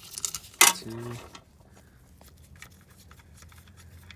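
Metal clicks and scrapes of bolts being taken out of a Honda GC190 single-cylinder engine during disassembly, with one sharp click about half a second in followed by faint scattered ticks.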